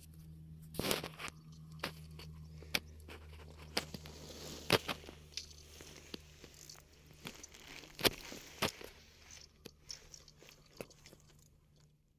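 Irregular crunches and sharp clicks, loudest about a second in, near the middle and about two-thirds of the way through, over a steady low hum.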